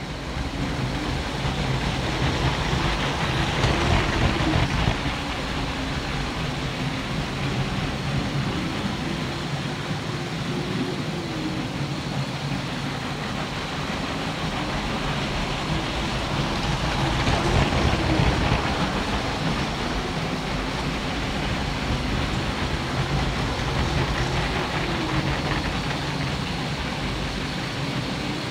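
Small electric motors and plastic gearing of a motorized LEGO layout running with a steady whir, swelling louder twice, about four seconds in and again past the halfway mark.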